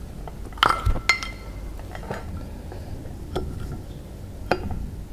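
Seal puller levering old thermostat seals out of an Evinrude 150's aluminium cylinder head: about five sharp metallic clicks and clinks spread over the seconds. The two about a second in are the loudest and ring briefly.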